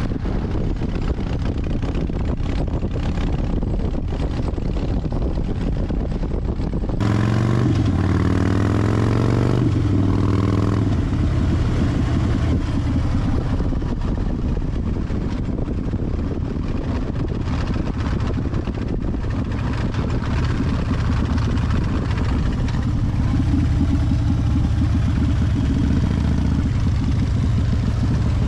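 Harley-Davidson Fat Bob's V-twin under way, with wind rushing over the microphone. About seven seconds in the sound changes abruptly and the engine is heard accelerating, its pitch rising for a few seconds, then settling into a steady run.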